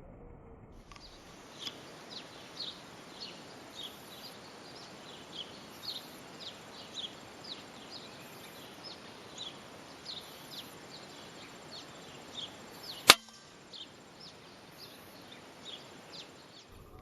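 Birds chirping over and over in short, high, falling notes, about two a second, against an outdoor hiss. A single sharp rifle shot cracks out about three-quarters of the way through, and the chirping carries on after it.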